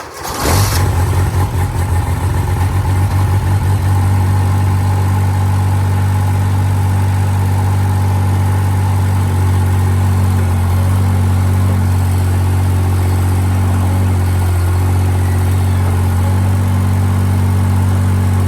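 An engine running steadily and loud: it comes in suddenly, builds over the first few seconds, then holds an even run.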